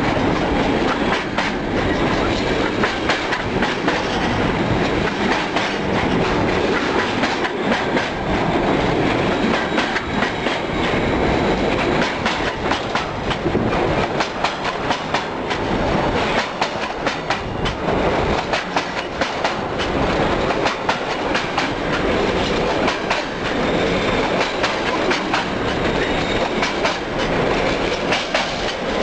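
Container freight wagons rolling past at close range, their wheels clattering over the rail joints in a steady stream of knocks and rattles. The title presents the clatter as showing the poor state of the track.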